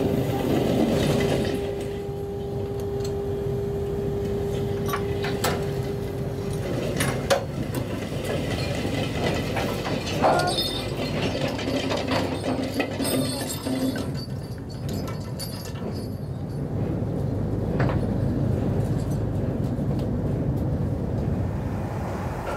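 A fishing trawler's deck machinery running steadily while the nets are worked. A steady hum stops about six and a half seconds in, and a few sharp metallic clanks sound at intervals.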